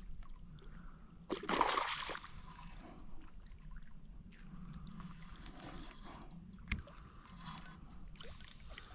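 Water splashing and sloshing as a hooked bass is brought in at the surface, with one louder splash about a second and a half in.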